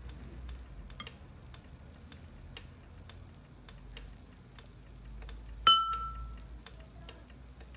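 A clock ticking steadily, about two ticks a second. Once, late on, a metal spoon clinks sharply against a porcelain bowl with a short ringing note, the loudest sound here.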